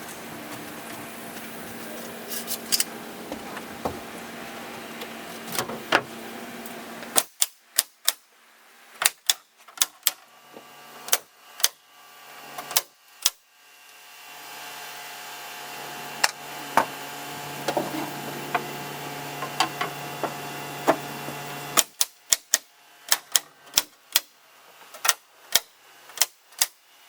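Nails being driven into OSB sheathing: a long run of sharp, quick shots, bunched in rapid strings, over a steady background hum that cuts in and out.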